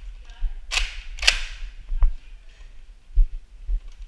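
Two sharp pops of a Nerf blaster firing, about half a second apart, followed by a softer knock and a dull thump a couple of seconds later.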